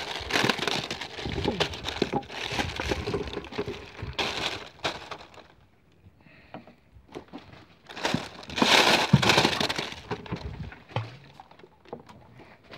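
Rustling and crackling handling noise close to the microphone, coming in irregular spells, loudest in the first few seconds and again around nine seconds in.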